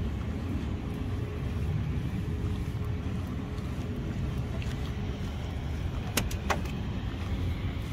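Steady low rumble. About six seconds in come two sharp clicks, a third of a second apart, as the cab door latch of a towbarless aircraft pushback tractor is worked open.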